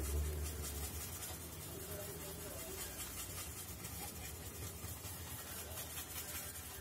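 Faint scratching of a paintbrush working and mixing a small dab of paint on a styrofoam surface, over a steady low hum.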